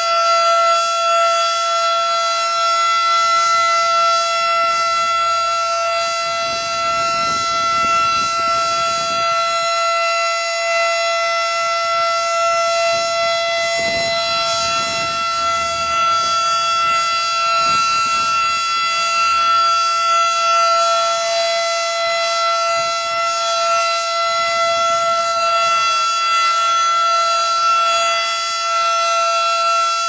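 Federal Signal Model 5 three-phase outdoor warning siren sounding a steady alert tone: one loud, high, held note with many overtones.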